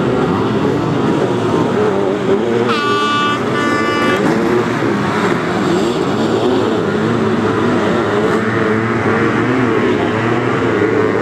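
Sidecar motocross outfits' engines revving hard, the pitch rising and falling with the throttle. About three seconds in, a horn blasts twice, briefly.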